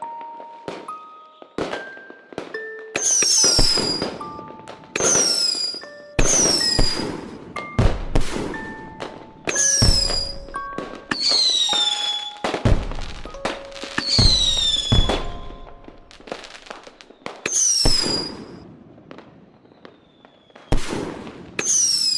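Fireworks going off in quick succession, about a dozen bangs, most with a high whistle that sweeps down in pitch after the bang. Short single bell-like notes at different pitches sound between the bursts.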